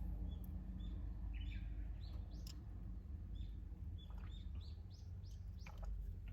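Small birds chirping outdoors: many short, high notes repeated at uneven intervals, with a few quick sweeping calls, over a faint steady low rumble.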